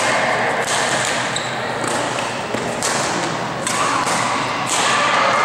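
Badminton rally: rackets striking a shuttlecock about once a second, each hit a sharp crack that echoes in a large hall, over a background murmur of voices.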